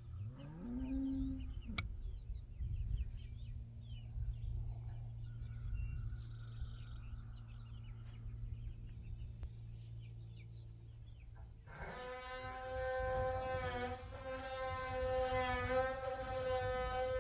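Outdoor farm ambience: a low rumble with faint, scattered chirping. About twelve seconds in, background music starts suddenly, with a sustained horn-like note.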